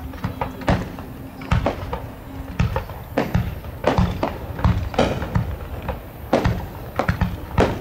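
Aerial fireworks shells bursting one after another, close to twenty sharp bangs at irregular spacing, several a second at times, most trailed by a short rumbling echo.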